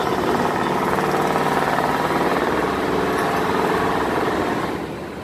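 Uncovered deck-mounted diesel engine of a steel cargo barge running under way as the barge passes close by: a loud, steady, fast mechanical clatter that falls away about four and a half seconds in as the engine moves off.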